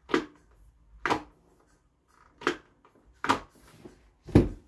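Five sharp clicks and knocks, about one a second, as a motorcycle helmet is handled, with the last click the loudest.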